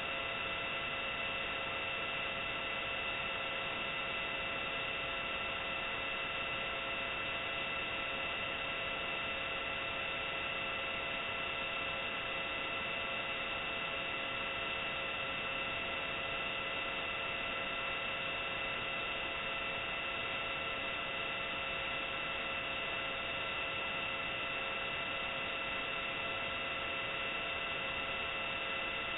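Steady, dull radio-style static: an even hiss with several faint steady humming tones, unchanging throughout, as on a broadcast channel waiting before an emergency alert.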